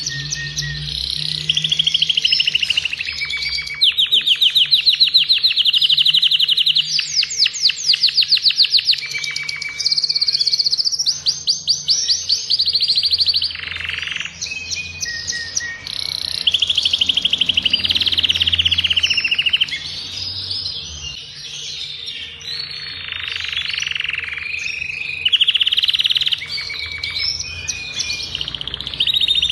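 Adult male agate canary in full song: long, rapid trills and rolls of repeated notes alternating with shorter warbled phrases, with only brief pauses between them.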